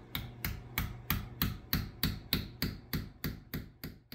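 A hammer striking a wooden wedge into the kerf of a hickory axe handle, setting the axe head on the handle: steady, even taps at about three a second, thirteen or so in a row.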